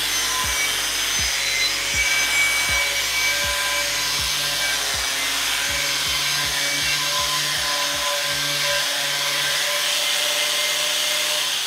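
Electric angle grinder running a small wire wheel against the bottom of a carbon steel skillet: a steady motor whine under the hiss of wire scrubbing steel, cleaning scale off the pan's bottom and label.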